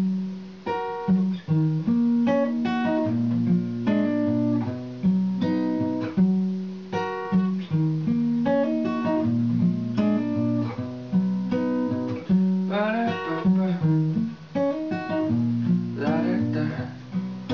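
Cutaway acoustic guitar playing a song's instrumental opening: a picked chord pattern over repeating bass notes.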